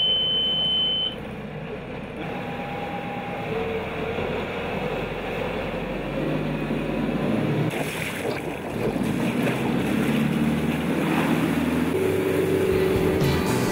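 An Ocqueteau Timonier 625's inboard engine running steadily under way, heard from inside the wheelhouse, with water rushing along the hull. A high steady beep sounds for about the first second.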